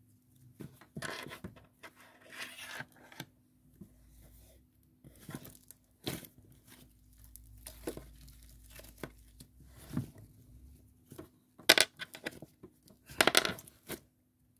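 Blue slime with sprinkles being stretched, squished and poked by hand, making irregular sticky crackling and tearing sounds, the loudest near the end.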